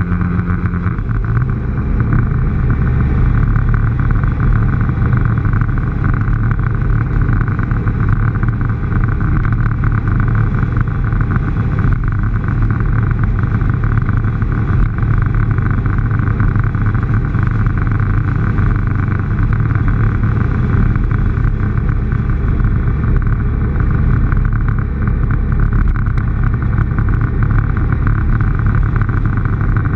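Motorcycle engine running at a steady cruising speed, with wind and road noise on the microphone.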